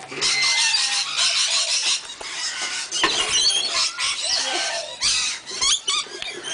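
Lorikeets chattering: a constant busy flurry of short, high-pitched squeaks, chirps and screeches, with a few sharp clicks.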